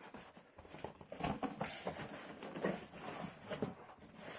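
Irregular rustling, light taps and soft knocks as a boxed PC case and its packaging are handled.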